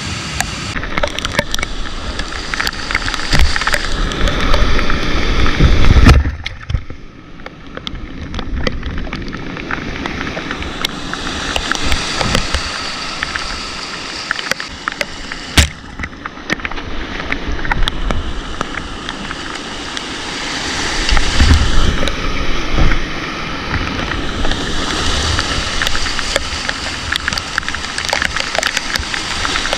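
Rushing whitewater of a steep mountain river around a solo canoe running the rapids, with scattered knocks of paddle and hull and one sharp knock about halfway through. Low buffeting swells in and out, loudest around six seconds in and again near twenty.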